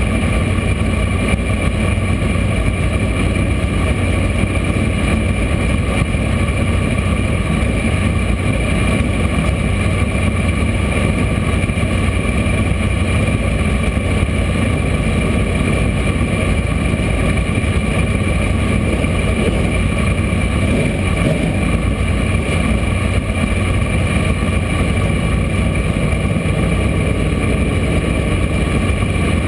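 Dirt-track race car engine idling steadily, heard from inside the cockpit.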